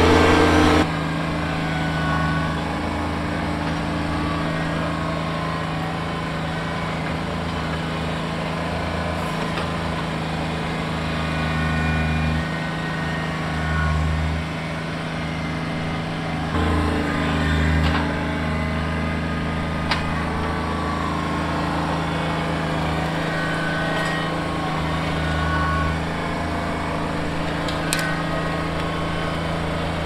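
Kubota BX23S compact tractor's three-cylinder diesel engine running steadily while it works the loader and grapple; the engine note shifts a few times.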